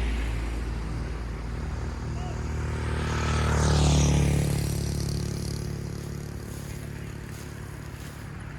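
A motor vehicle passes by. Its sound swells to its loudest about four seconds in, then drops in pitch as it moves away, over a steady low hum.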